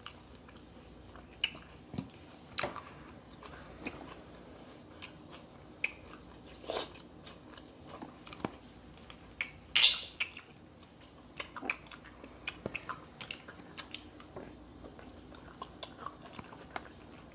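Close-up eating of a seafood boil: chewing and mouth sounds with scattered sharp cracks and crunches, the loudest about ten seconds in.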